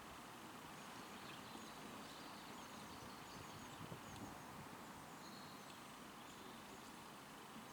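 Faint outdoor ambience with soft, irregular plucking and tearing sounds of Canada geese grazing on grass. Faint high chirps of small birds come through now and then.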